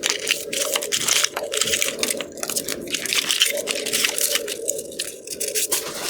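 A headlight restoration kit's retail packaging being opened and handled, crackling and crinkling in an irregular run of sharp snaps and rustles.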